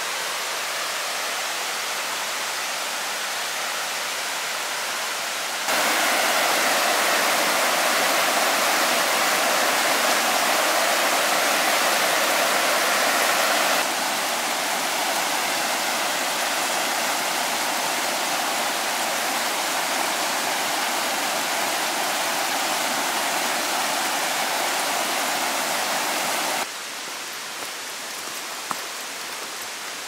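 Steady rush of water in a mountain stream. Its level jumps abruptly about 6, 14 and 27 seconds in.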